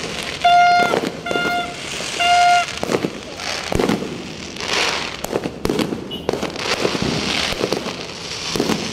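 Fireworks going off: irregular bangs and crackling. In the first few seconds there are three short, high-pitched horn toots, louder than the bangs.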